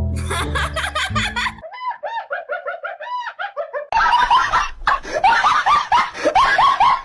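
People laughing hard in quick repeated bursts, growing louder and denser about four seconds in. A bass-heavy music track under the laughter cuts off about a second and a half in.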